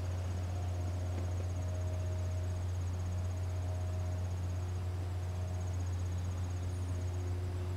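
Insects, crickets by the sound of it, trilling in a fast, even, high-pitched pulse that breaks off briefly about five seconds in and again near the end, over a steady low hum.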